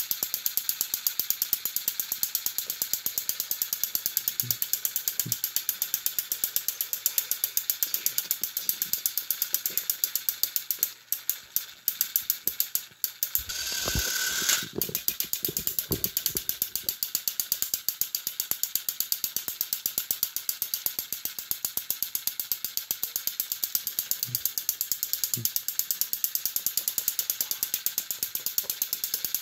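Battery-powered Thomas & Friends toy train engines pushing against each other on plastic track, their gearboxes clicking rapidly and evenly like a ratchet. About halfway through there is a short louder rustle and bump.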